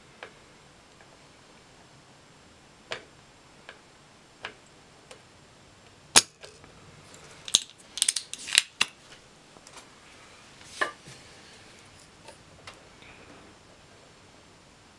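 Spring-loaded desoldering pump (solder sucker) at work on a circuit-board joint: a series of sharp snaps and clicks as the plunger is fired and re-cocked, the loudest snap about six seconds in and a quick cluster of clicks around eight seconds.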